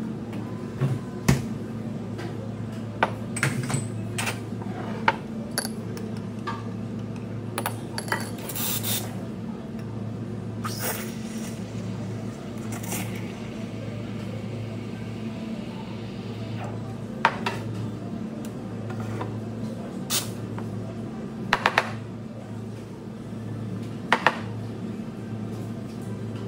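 Cups, dishes and utensils clinking and knocking now and then over a steady machine hum, with a soft hiss for about five seconds in the middle.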